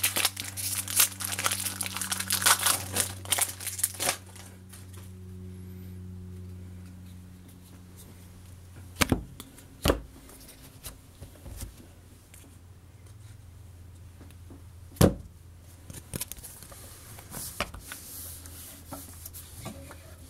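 Trading-card pack wrapper being torn open and crinkled for the first few seconds, over a low steady hum that stops partway through. Then a few sharp taps as a stack of baseball cards is knocked on a wooden desk, with light rustling of the cards.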